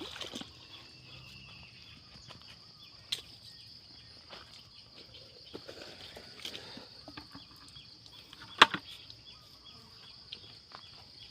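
Steady high-pitched insect chorus, crickets chirring, with scattered small clicks and knocks; a sharp knock stands out about three quarters of the way through.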